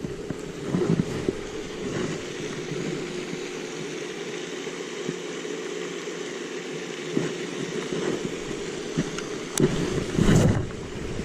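Wind on the microphone beside a pond, a steady rushing, with a few short knocks and thumps of handling; the loudest is a low thump near the end.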